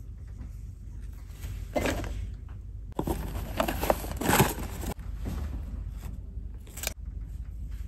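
Cardboard sweet box being opened and a chocolate in a crinkly plastic wrapper taken out: rustling and crinkling of card and plastic in several bursts, loudest between about three and five seconds in, with a sharp click near the end.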